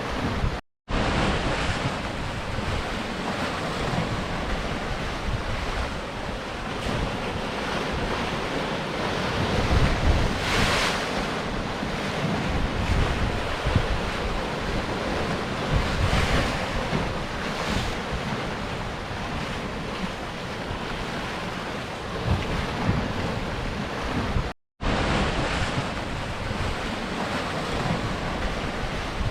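Sea surf washing against rocks, a continuous rush of water that swells louder now and then, with wind rumbling on the microphone. The sound cuts out completely for a moment twice, about a second in and near the end.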